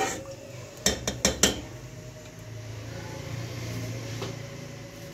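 A wooden spoon knocked four times in quick succession against the rim of a pot of melting ghee, then a steady low hum.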